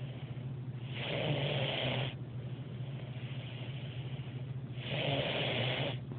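Small puppy snoring in its sleep: two louder snores, each about a second long and nearly four seconds apart, with softer breathing between them.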